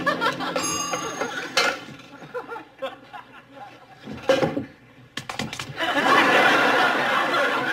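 Studio audience laughter, swelling loudly about six seconds in, over scattered clinks and knocks of kitchen pots and utensils.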